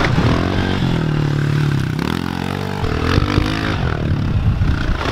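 Pit bike engine revving hard, its pitch rising and falling with the throttle; it eases off briefly about two seconds in, then revs up again.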